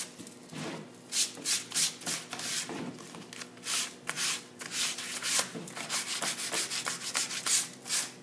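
Hand sanding with 180-grit sandpaper over dried chalk-clay paint on a board, in quick scratchy back-and-forth strokes about two a second, wearing through the top coat to distress the finish.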